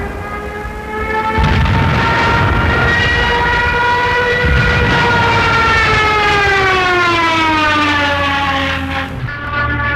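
Ju 87 Stuka's Jericho trumpet, the ram-air siren on its landing-gear leg, wailing over a low engine rumble. Its pitch rises slightly, then falls steadily over several seconds. Near the end the sound cuts to a lower, steady siren tone.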